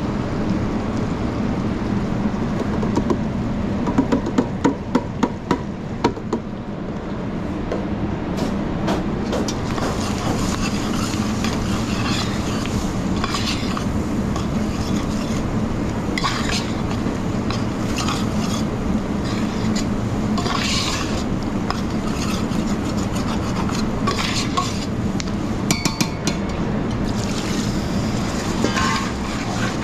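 Kitchen cooking sounds: utensils stirring and scraping in a pan over a steady background hum. About four seconds in there is a quick run of about six knocks, with scattered clinks after.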